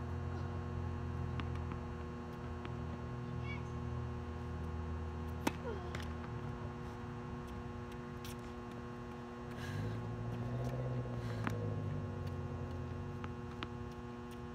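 Steady electrical hum with several fixed tones, under a low rumble that fades about six seconds in and comes back for a couple of seconds near ten seconds. A sharp knock sounds a little over five seconds in and another about eleven seconds in.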